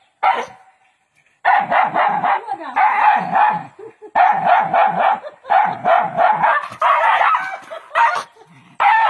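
Dog barking in fast, almost continuous runs of quick barks, starting about a second and a half in and breaking off briefly a couple of times.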